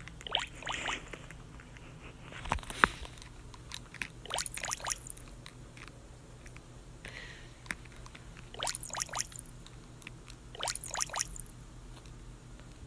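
Quiet room with a low steady hum and a few small clusters of brief soft knocks and scuffs.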